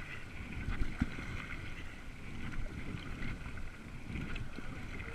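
River water moving and splashing around a whitewater raft, with wind buffeting the microphone and two short knocks about a second in.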